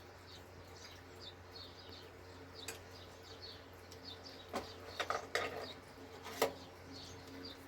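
Small birds chirping over and over, short high chirps every fraction of a second, over a steady low hum. A few sharp knocks stand out, the loudest about six seconds in.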